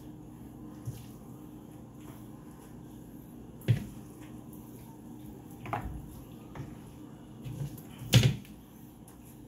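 Several sharp clinks and knocks of metal cookware as handfuls of cooked noodles go from a metal strainer into a frying pan, the loudest near the end, over a steady low hum.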